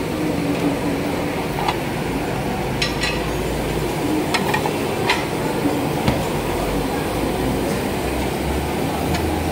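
Steady background din of a busy restaurant, with scattered light clinks and clacks of plates being handled and stacked.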